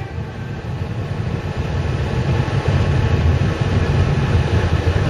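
Ford Mustang's engine and tyre noise heard inside the cabin while cruising at highway speed: a steady low rumble that grows a little louder after the first second.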